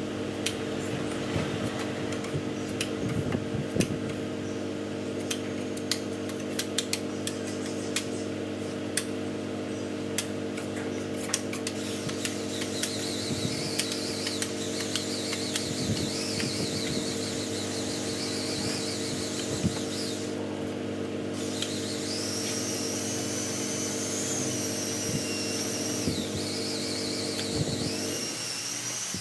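A steady machine hum with scattered sharp clicks; a wavering high-pitched whine comes in about halfway through, and the hum stops just before the end.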